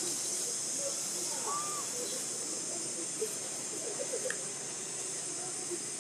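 Outdoor ambience: a steady high hiss with faint scattered short chirps and distant voice-like murmurs, and a small click about four seconds in.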